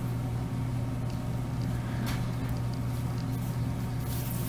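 A steady low hum runs throughout. Over it come a few faint soft rustles of acrylic yarn drawn through crochet stitches with a metal yarn needle, as the tails are woven in.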